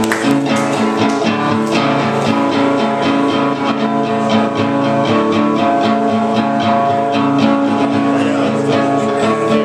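Acoustic guitar strummed steadily in a quick, even rhythm, chords ringing on with no singing.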